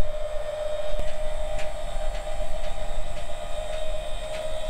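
Fifth-wheel camper's powered landing-gear jacks running, a steady motor whine as the jacks retract and let the camper's weight down onto the truck's hitch, with a few faint ticks.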